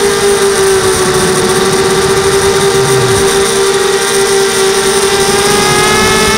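Model airplane's motor and propeller running at a steady cruise, heard from on board as a loud, constant whine over wind hiss, the pitch rising slightly near the end.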